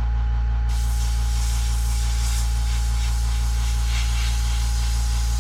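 Grex airbrush hissing as it sprays thinned craft paint. Its hiss breaks off for under a second at the start, then runs on steadily over a constant low hum.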